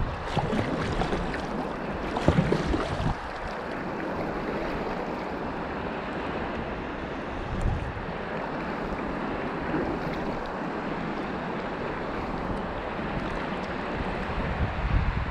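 Shallow river current rippling and rushing around a whitewater kayak, a steady watery hiss, with wind buffeting the microphone in gusts during the first few seconds and again near the end.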